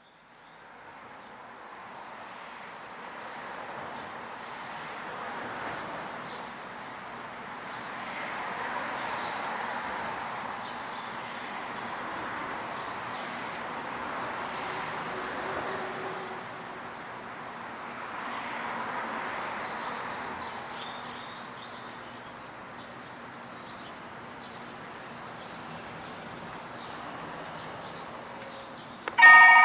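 Road traffic passing, its noise swelling and fading several times, with faint chirps above it. Right at the end a level crossing's warning bell suddenly starts ringing, loud and many-toned.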